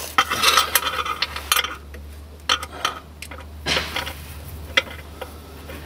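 Metal hand tool clicking and scraping against the bolts and pipe flange while a bolt is worked into place on an Audi TT's oil pickup pipe: a busy run of light metallic clinks for the first second and a half, then a short lull and scattered single clicks.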